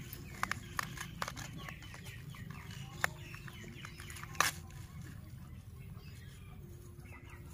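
Crisp cracks and snaps of raw cabbage leaves as a cross-cut cabbage head is pried open by hand: a quick run of cracks in the first second and a half, then single louder snaps about three and four and a half seconds in.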